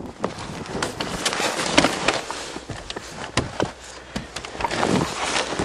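Irregular clicks, knocks and rustling of someone handling things and settling into the driver's seat of a cold, parked car.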